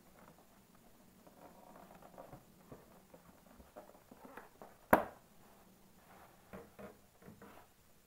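Thin clear plastic clamshell food box being pried open by hand: quiet crinkling and tapping of the plastic, then one sharp snap about five seconds in as the lid comes free, followed by a few more crackles of the plastic.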